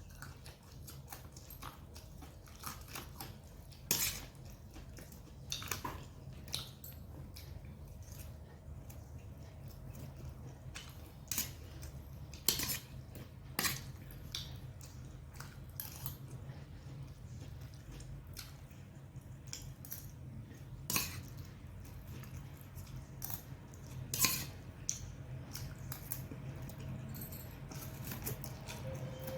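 Eating sounds: cutlery clicking against a dish at irregular intervals, with chewing, over a steady low hum.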